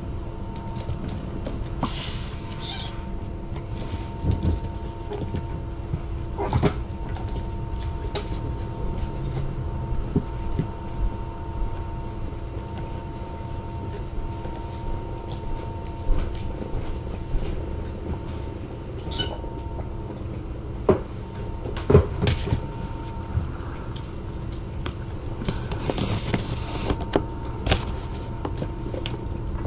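Steady room hum with scattered light knocks, taps and rustles of kittens playing on the floor and a person handling things close to the microphone; the loudest is a pair of sharp knocks about two-thirds of the way in.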